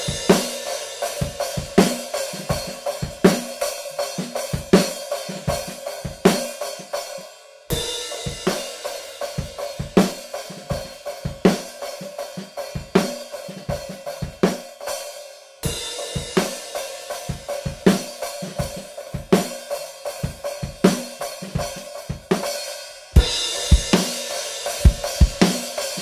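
Drum kit playing a steady groove of kick, snare, hi-hat and cymbals, heard through a pair of Aston Starlight small-diaphragm condenser mics as overheads. The playing comes in short takes that cut off and restart about every eight seconds as the mic voicing changes. The last take, with the close mics added, is fuller and louder in the low end.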